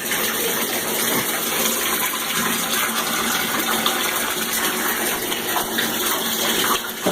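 Bathtub tap running into the tub, a steady rush of water.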